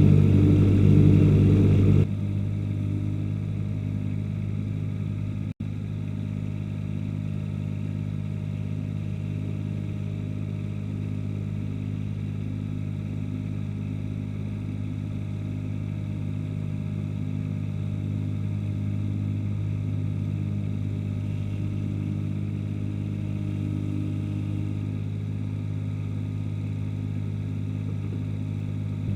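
Ransomes HR300 ride-on mower's engine running at a steady speed. It is louder for about the first two seconds, drops suddenly in level, and cuts out for an instant about five and a half seconds in.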